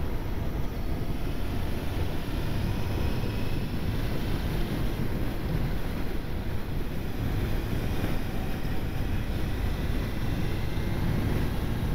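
Inline-four engine of a 1999 Honda CBR900RR FireBlade running steadily at road speed, mixed with heavy wind rush on the handlebar-mounted camera's microphone.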